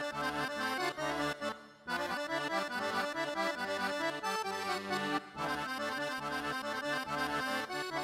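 Yamaha Montage synthesizer played live on its keys: a melody line over a rhythmic bass and chord pattern, with two brief breaks about two and five seconds in.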